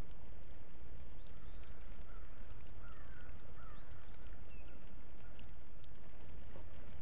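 Steady outdoor background noise with a low rumble and light crackling, and a few faint bird chirps about three seconds in.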